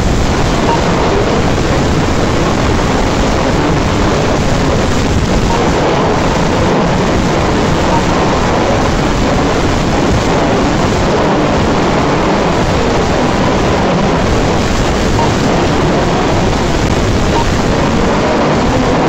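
Steady, dense racing noise of radio-controlled 4WD off-road buggies running round a dirt track in a large hall, their motors and tyres blending with the background crowd noise.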